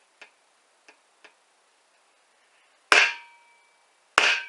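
Two strikes of a rubber mallet on a folding knife, driving its tip through 22-gauge sheet steel, about a second and a half apart, each leaving a brief metallic ring; a few faint ticks come before them.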